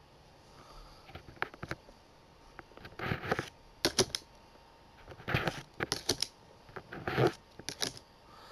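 A Pokémon booster pack and its trading cards being handled: short bursts of foil-wrapper crinkling and card rustling, about one every second, with quiet between.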